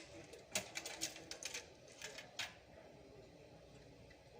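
A quick run of sharp clicks and taps, about eight in the first two and a half seconds, from hard parts being handled while working inside a desktop PC during a motherboard replacement; after that only faint background.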